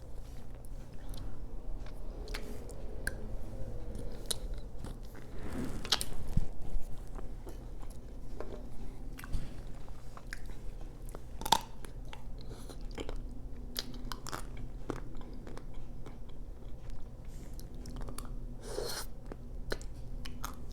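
Close-miked biting and chewing of chocolate-coated Magnum ice cream bars: the hard chocolate shell cracks in scattered sharp crunches between softer wet chewing and mouth sounds.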